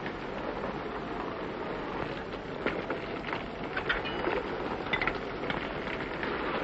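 Steady rain falling: an even hiss with scattered short drop-like ticks.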